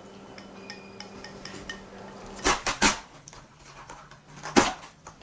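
Hard objects knocking or clinking on a hard surface, like dishes or utensils being handled: two sharp knocks close together about halfway through, then a third, louder one near the end, over a faint steady background hum.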